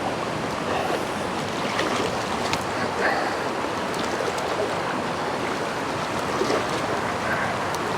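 Shallow, fast-flowing stream rushing steadily, with a few faint ticks over the water noise.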